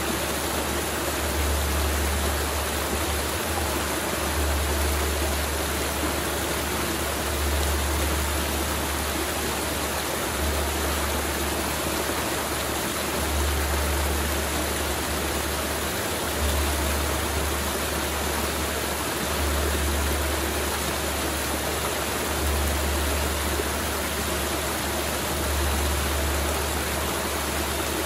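Mountain river rushing steadily over rocks, with a low rumble under it that swells and fades about every three seconds.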